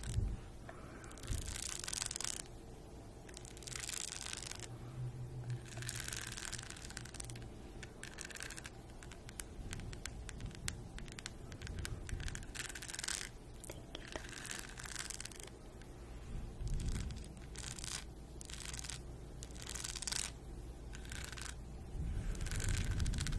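Long pointed fingernails scratching over a rhinestone-covered makeup brush holder, in a string of short, separate crisp scratches with brief pauses between them.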